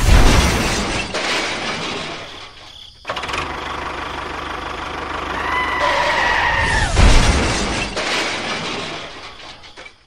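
Crash sound effects for a toy train and a model tractor: a loud crash at the start that fades away, then a steady engine-like noise with a high falling screech, and a second loud crash about seven seconds in that dies away toward the end.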